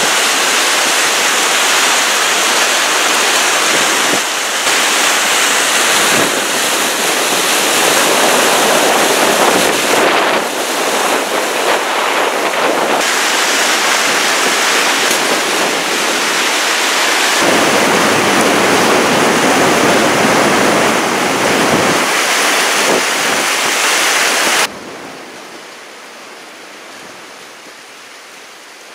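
Floodwater rushing and churning close by, a loud steady rushing noise that changes abruptly several times. Near the end it drops to a much quieter steady wash.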